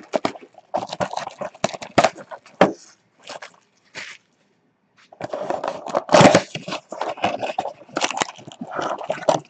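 Trading card pack wrappers and cards being handled and torn open, crinkling and crackling in irregular bursts, with a short pause about four seconds in.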